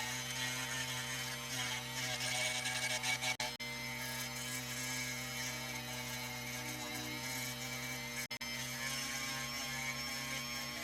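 Small electric motor of a lapidary grinding machine running steadily with a hum, sanding opal at 600 grit. The sound drops out for an instant twice.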